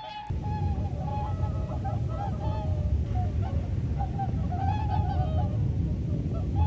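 A flock of swans honking, many short calls overlapping continuously. A low rumble starts suddenly just after the beginning and continues under the calls.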